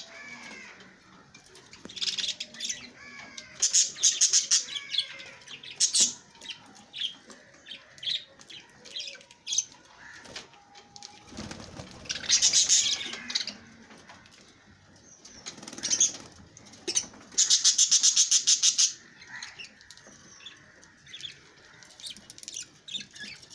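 Pet lovebirds chirping and squawking with short, sharp high calls throughout, broken by bursts of rapid fluttering wingbeats, the longest about three-quarters of the way through.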